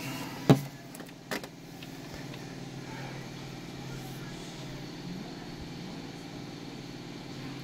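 Steady low engine hum, like a motor vehicle idling in the street, with two sharp clacks in the first second and a half.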